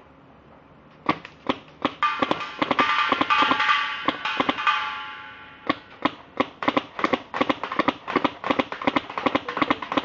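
Custom P90 paintball marker, converted from an airsoft shell, firing: a few single shots about a second in, then rapid strings of shots, about four a second in the second half. A high ringing tone sounds under the shots from about two to five seconds in.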